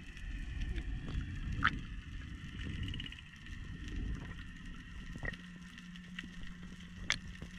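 Underwater reef ambience heard through a camera's waterproof housing: a low rumble of moving water with scattered sharp clicks, two louder ones about one and a half and seven seconds in. A low steady hum comes in past the five-second mark.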